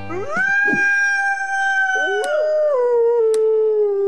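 Wolf howl: one long call that rises at the start, holds steady, then drops to a lower pitch about two seconds in, with two sharp clicks partway through.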